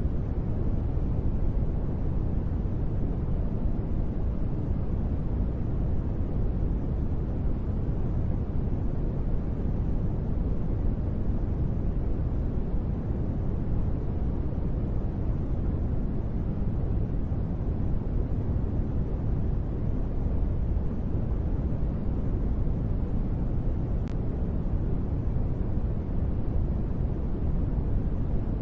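Steady, deep noise with little hiss, a sleep-noise track billed as gentle rain. It holds an even level, with no single drops or pattering standing out.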